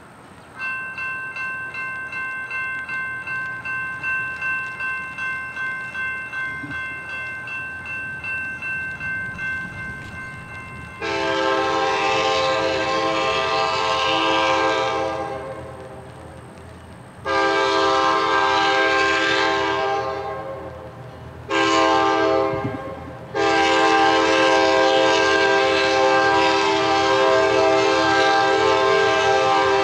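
Grade-crossing bell ringing at about two strokes a second. About a third of the way in, the horn of the Kansas City Southern business train's F-unit locomotive takes over, blowing the crossing signal: long, long, short, long.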